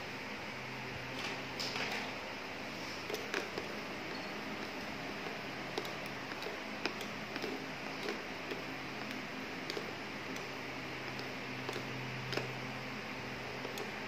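Small irregular clicks and taps of tongs against a small toy frying pan, over a steady hiss.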